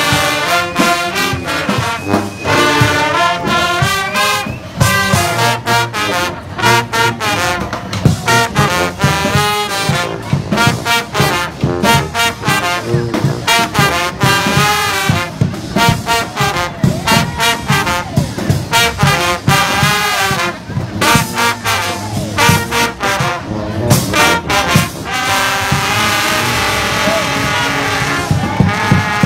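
Street brass band playing: trumpets and trombones over steady drum beats, turning to denser, more sustained chords near the end.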